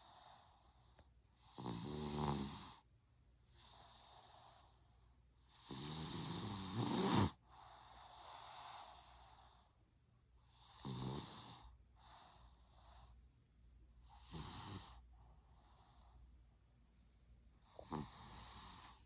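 A three-year-old child snoring, deep like an old man: five pitched snores about four seconds apart, the longest and loudest one about six seconds in and cutting off sharply, with softer breaths between them.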